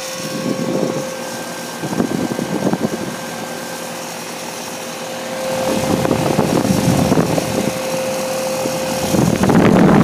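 2009 York Latitude heat pump outdoor unit running in heat mode, its fan and compressor giving a steady hum. Irregular gusts of the fan's discharge air rush over the microphone and get louder toward the end.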